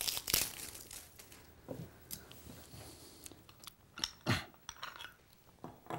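Dry wood shavings from a scrub plane crinkling and crunching as they are crumpled in the hands. There are a few sharp clicks, the loudest about four seconds in, as the plane's blade and cap are handled.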